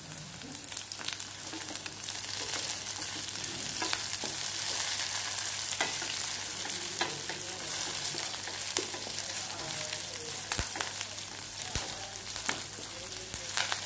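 Chopped onions and curry leaves sizzling in hot sesame oil in a stainless steel kadai, with a steady hiss. A wooden spatula stirs them, and scattered sharp clicks and scrapes come against the pan.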